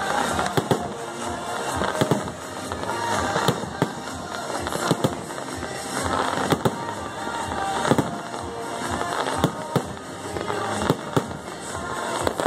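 Fireworks display: aerial shells bursting one after another, with sharp bangs coming about once or twice a second.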